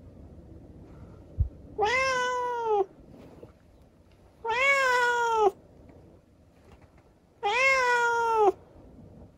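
Tabby cat meowing three times, each meow about a second long and a few seconds apart, rising at the start and sagging at the end. A brief low thump comes just before the first meow.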